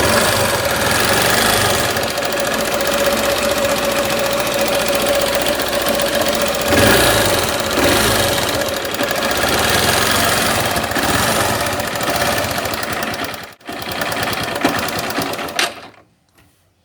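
Motorcycle engine running with a loud, rapid mechanical clatter, an abnormal noise that is commonly taken for tappet or rocker-arm trouble in the cylinder head. The sound cuts off near the end.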